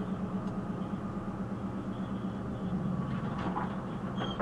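Heavy goods lorry's diesel engine running steadily, heard from the cab.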